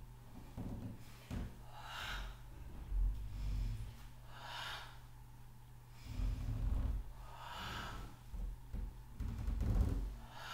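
A woman breathing hard during Pilates leg exercises on a mat: four short, forceful breaths about every two and a half to three seconds. Soft thuds and rustling from her body and legs moving on the mat come between the breaths, over a steady low hum.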